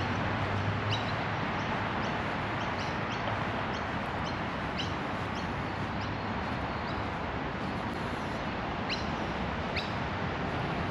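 Scattered short, high bird chirps, a dozen or so in all, over a steady outdoor background hiss.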